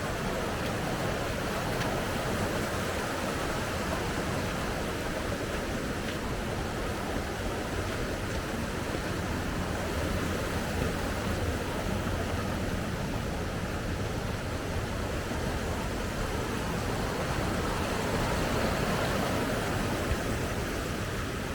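Mountain stream rushing over rocks in a steady, unbroken flow, running full after a night of rain.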